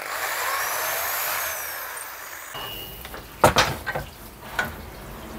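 Corded electric drill boring out the bolt holes of a metal intake manifold spacer plate clamped in a vise, the motor and bit running steadily. The drilling stops about two and a half seconds in, followed by a few clicks and knocks as the part is handled.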